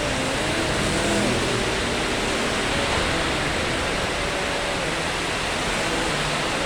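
Steady hiss of heavy rain, with faint wavering tones underneath.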